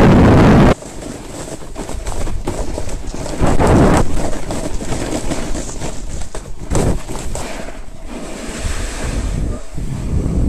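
Wind rushing over a TomTom Bandit action camera's microphone during a fast ski descent. It is very loud at first and drops off abruptly about a second in. After that a lower rush of wind and skis on snow swells and fades as the skier slows.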